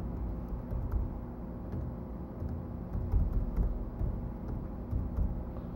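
Faint, irregular clicks of computer keyboard typing and mouse clicks, as names are entered into an online randomizer, over a steady low background rumble.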